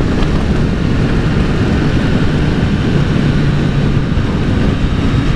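Triumph motorcycle engine running at a steady cruising speed, with wind rushing over the helmet microphone.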